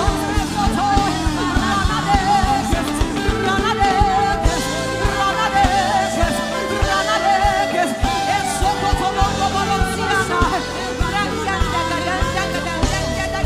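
Live gospel worship music: singing voices over a band with a steady drum beat and sustained keyboard-like chords.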